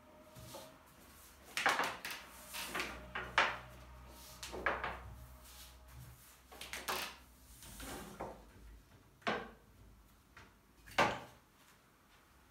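Long thin wooden rolling pin (oklava) rolling and knocking on a glass tabletop while yufka dough is rolled out. It makes a series of irregular short knocks and scrapes, with a low rumble under the rolling in the first half.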